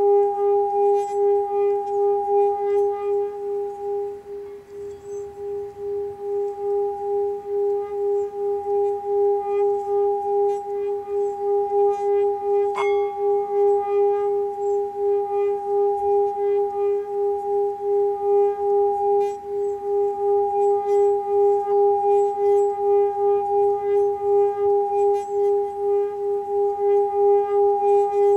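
Small metal 7 chakra singing bowl rubbed around its rim with a padded mallet, singing a steady tone with a higher overtone and a wavering pulse about twice a second. It dips briefly about four seconds in, then swells back. About thirteen seconds in, the mallet clinks once against the rim.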